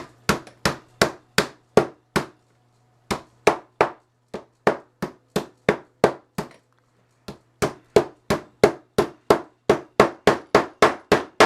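An iPhone 5S display being struck repeatedly to knock it back into the phone body on a table. It is a fast run of sharp knocks, about three a second, that stops twice briefly.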